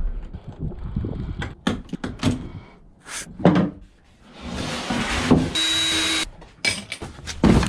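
Knocks and clatter of carpeted trim and wiring being handled, then a cordless drill/driver runs for about a second with a steady whine, a little over two thirds of the way through.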